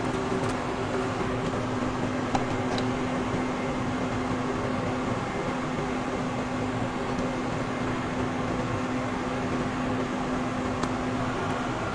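Steady mechanical hum with a low, even drone. A few faint light clicks come through, such as tongs touching the food.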